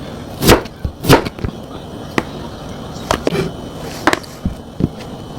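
A series of separate sharp knocks and clacks of hard objects, about seven of them at uneven intervals, the two loudest about half a second and a second in, some with a short ring after them.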